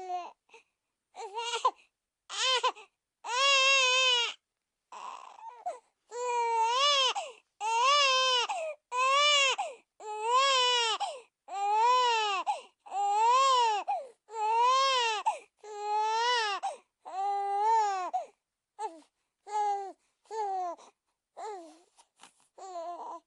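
Cartoon baby character crying: a few short sobs, then a run of about a dozen long, high-pitched wails that each rise and fall in pitch, breaking back into short sobs near the end.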